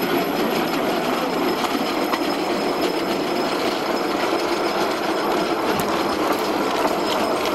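Steel wheels of a small human-powered rail cart rolling along the track, a steady rolling noise of wheel on rail.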